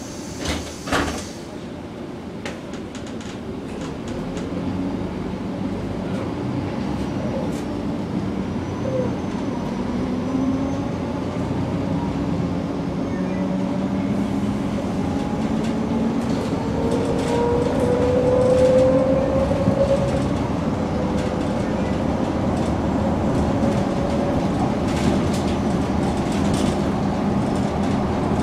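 2007 MAN NG 313 articulated diesel city bus driving off and accelerating: the engine and transmission note rises in pitch in several successive sweeps over steady road rumble, loudest about two-thirds of the way through. Two short knocks sound about a second in.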